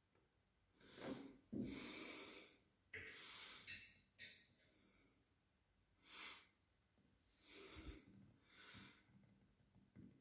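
A person breathing close to the microphone: several short, noisy breaths and sniffs a second or two apart, with quiet between them.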